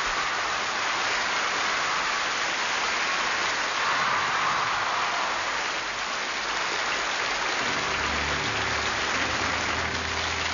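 Audience applause, a steady wash of clapping. About three quarters of the way through, low sustained notes of the music begin underneath it.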